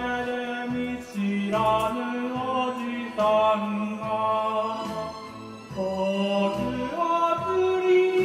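Karaoke music playing, with a melody moving in held notes of about a second each over a steady low beat.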